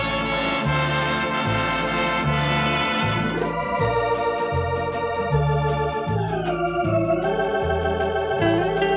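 Big-band music: the brass section plays over a pulsing bass line, then about three seconds in a Thomas electronic organ takes the melody with a wobbling vibrato, its phrase stepping down in pitch near the middle.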